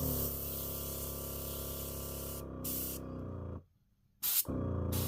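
Gaahleri TurboX mini compressor running while air hisses out of the GHAD-39 airbrush. The spraying and the compressor's hum stop together about three and a half seconds in and start again about half a second later.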